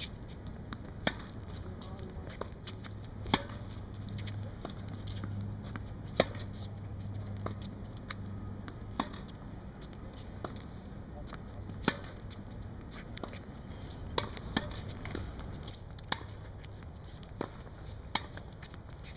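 Tennis ball struck back and forth in a groundstroke rally on a hard court: a sharp racquet-hit pop about every three seconds, with fainter ticks of bounces and footsteps between, over a steady low hum.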